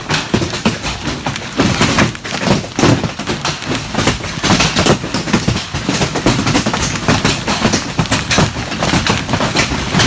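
Hailstones pelting a metal barn and the ground in a dense, unbroken barrage of impacts, a loud clatter with no let-up.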